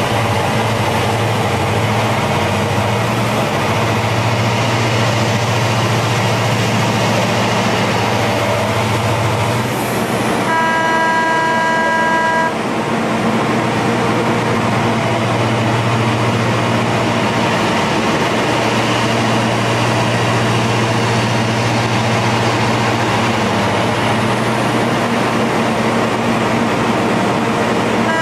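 XCMG XE7000 mining excavator running steadily with a heavy low hum as the boom and bucket move. A horn sounds one held tone for about two seconds, roughly ten seconds in.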